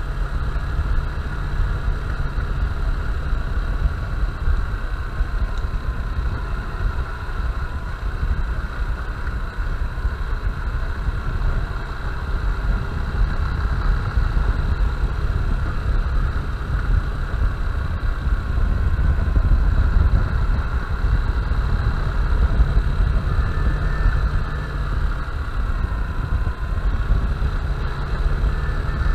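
Honda Bros 160 single-cylinder motorcycle engine running steadily under way, with heavy wind rumble on the microphone.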